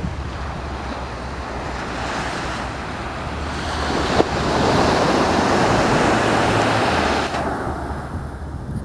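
Surf washing onto the beach: a wave swells up about a third of the way in, holds loudest for a few seconds, then recedes near the end.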